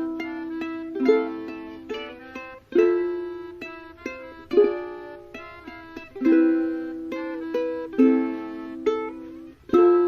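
Background music: a plucked-string instrument playing a slow, gentle melody. Each group of notes starts with a sharp pluck and fades away, about every second and a half to two seconds.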